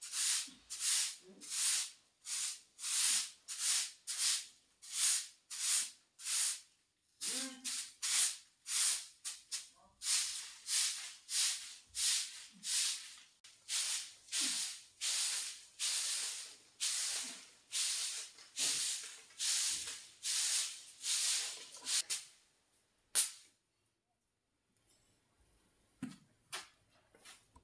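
Grass broom sweeping a dusty earthen floor: a steady run of swishes, about two a second, that stops about three quarters of the way through. A single sharp click follows.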